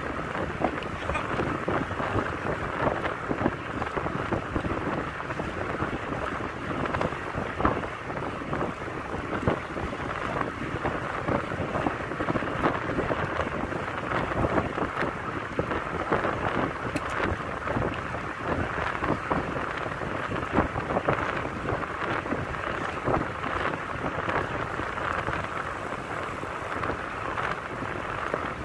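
Wind rushing over the microphone of a camera riding along on a bicycle, a steady rumbling hiss thick with crackles from the buffeting and road vibration.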